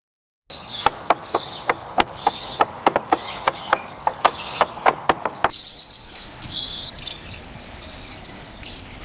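Bird calls: a run of sharp, clicking notes, about three or four a second, for about five seconds, then softer high chirps.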